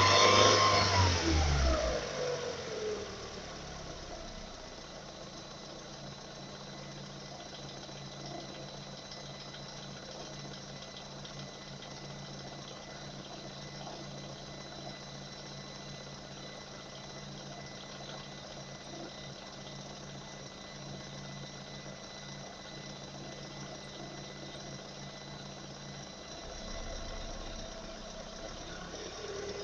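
Car engine with a suspected knock: revs fall back to idle over the first couple of seconds, it idles steadily, then begins to rev up again near the end.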